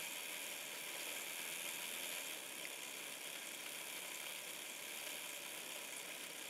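Oxford Rail OO gauge Adams Radial tank model locomotive running on a rolling road at low power: a faint, steady running noise from its small electric motor and driving wheels turning on the rollers.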